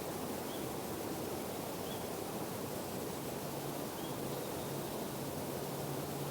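Steady outdoor background noise with a faint high bird call repeated four times, about every one and a half to two seconds. A faint low hum comes in about halfway through.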